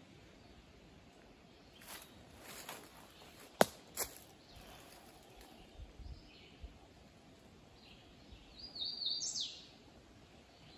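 Faint outdoor background noise with a few sharp cracks and clicks, the loudest about three and a half seconds in, then a short bird call of a few quick chirps ending in a rising sweep near the end.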